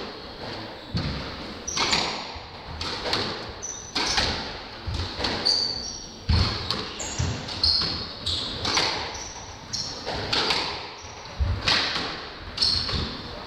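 Squash rally: the ball cracking off rackets and walls about once a second, each hit ringing in the enclosed court, with short high squeaks of court shoes on the wooden floor between the shots.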